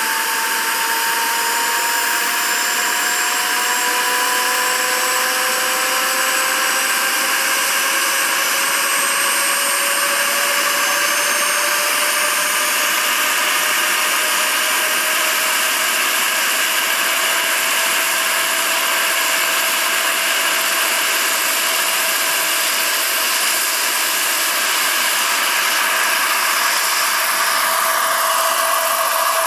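Turbine engine and twin rotors of a large RC Boeing Vertol CH-46 tandem-rotor scale helicopter running with a steady loud whine, its pitch climbing slowly as the rotors run up, until the model lifts into a low hover near the end.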